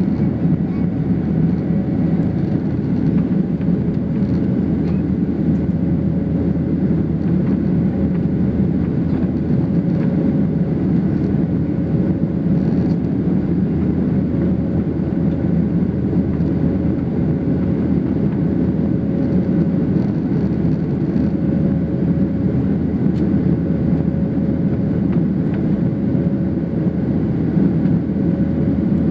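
Boeing 737 cabin noise during the climb after takeoff: a steady, loud rumble of jet engines and rushing air heard from a window seat over the wing, with a faint steady hum.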